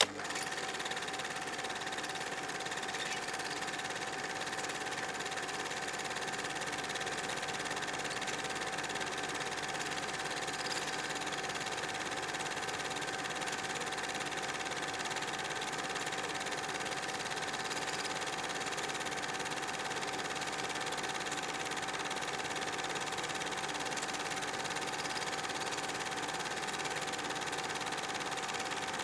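Cine film projector running steadily, with a constant pitched hum over a hiss.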